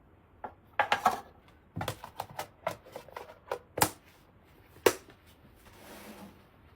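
An irregular run of sharp taps and knocks of hard objects, about a dozen over four seconds, the loudest near the end, followed by a soft rustle.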